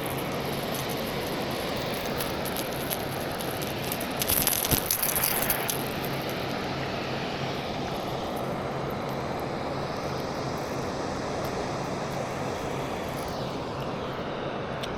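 Steady rushing outdoor noise of water and wind, with a faint low hum underneath. About four to six seconds in there is a short run of small clicks and rattles from handling.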